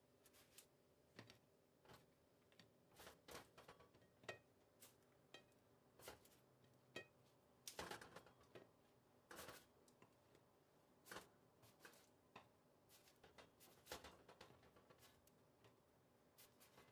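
Near silence with faint, scattered light clicks and taps at irregular intervals, like hands handling things at a work surface.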